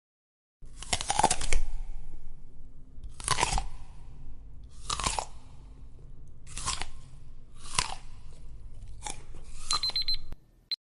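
Someone biting into and chewing a crunchy food, about seven loud crunches one to two seconds apart. The sound stops abruptly near the end.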